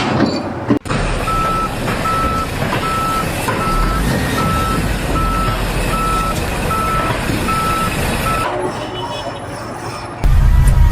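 Reversing alarm on a heavy vehicle beeping in a steady single-pitch pattern, about three beeps every two seconds, over engine and site noise. Near the end a loud low rumble takes over.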